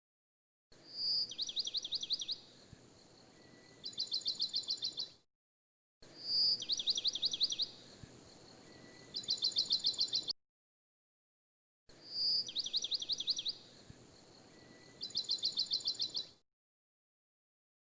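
A recording of birdsong played as a loop: each time, a short whistle is followed by rapid trills of about ten notes a second. The same clip plays three times, with a gap of dead silence between plays.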